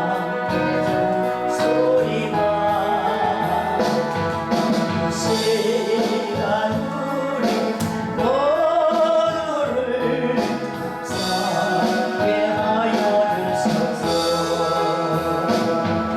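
Korean gospel song: a solo voice singing over instrumental accompaniment with sustained chords.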